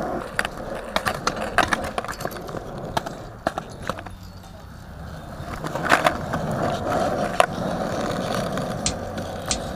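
Skateboard wheels rolling over rough concrete, broken by sharp clacks and knocks of the board on the ground. The rolling dies down around the middle and picks up again about six seconds in.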